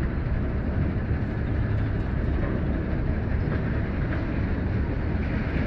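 Wind rumbling on the microphone: a steady low buffeting.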